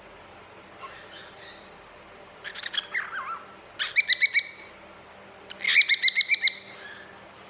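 Cockatiel whistling and chirping: a few short warbling calls, including a whistle that glides down about three seconds in, then two quick runs of sharp repeated notes about four and six seconds in, the second run the loudest.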